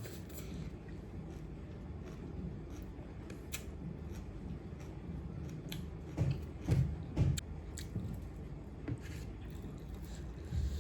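A person chewing food close to the microphone, with small wet mouth clicks and a few louder low knocks about six to seven and a half seconds in.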